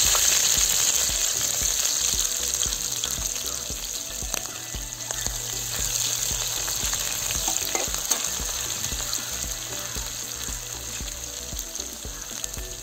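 Sliced onions sizzling in hot oil with mustard seeds and garlic in a steel kadai, with a metal spatula scraping the pan now and then. The sizzle is loudest at the start and slowly eases.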